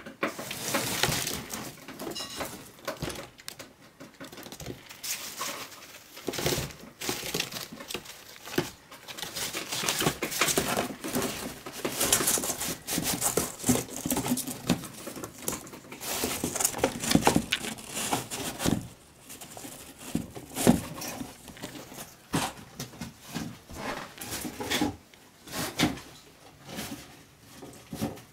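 Degus tearing and crinkling tissue paper, in irregular bursts of rustling with sharp little clicks.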